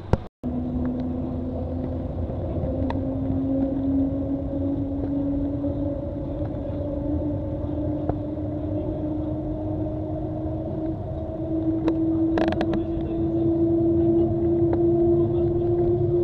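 Shanghai maglev train heard from inside the passenger cabin: a steady low rumble with a hum that rises slowly in pitch and grows louder as the train accelerates.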